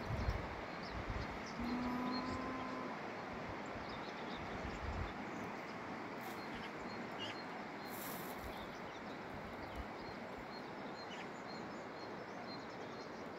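Rural outdoor ambience: faint scattered bird chirps over a steady hiss, with low rumbles on the microphone in the first five seconds. About two seconds in comes one flat, held call lasting about a second.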